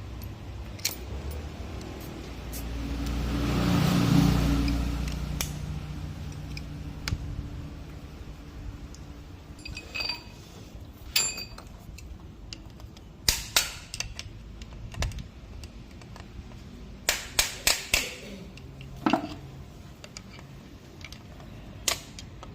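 Sharp metallic clicks and taps of hand tools on AC compressor parts as the new clutch coil's lock ring is fitted, including a quick run of four taps about two-thirds of the way in. A low vehicle rumble swells and fades about four seconds in.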